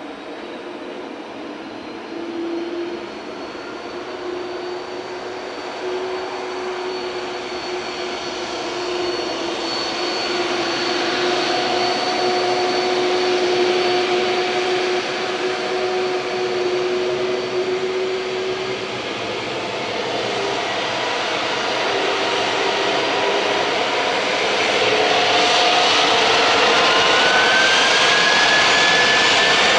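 Airbus A300-600R jet engines whining and growing steadily louder as the airliner taxis onto the runway. Near the end a whine rises in pitch as the engines begin to spool up for take-off.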